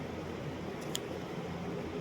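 Steady low hum and hiss with one faint click about a second in.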